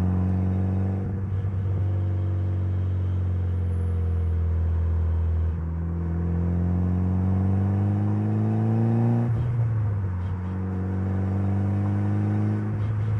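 Mitsubishi Lancer Evolution's turbocharged 4G63 inline-four running under way. The engine note sags slowly, then climbs steadily as the car accelerates. It breaks and drops sharply a few times at gear changes, most clearly about two-thirds of the way through.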